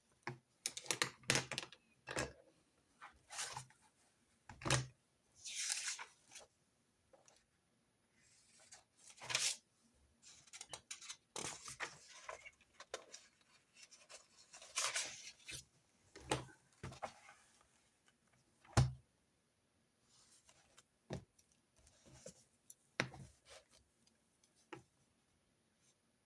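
Paper rustling and swishing, with scattered sharp clicks and knocks of stationery being picked up and set down on a desk during note-taking.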